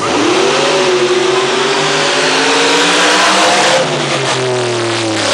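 Monster truck engines at full throttle in a drag race, loud. The engine note jumps in suddenly and climbs in pitch for nearly four seconds, then falls away.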